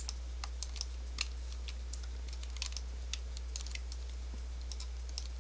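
Computer keyboard and mouse clicking at irregular spacing, several clicks a second, over a steady low hum.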